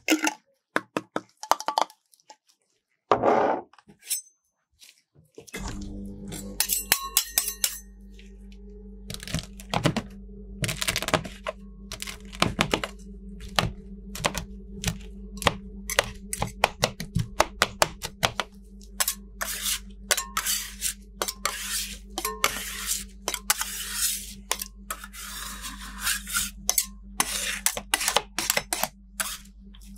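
Two metal spatulas chopping and scraping Magnum ice cream bars, brownie and raspberries in cream on the steel cold plate of a rolled-ice-cream machine: a long run of quick, sharp chops and knocks that comes thicker in the second half. About five seconds in, a steady low hum starts under the chopping, the machine's refrigeration unit cooling the plate.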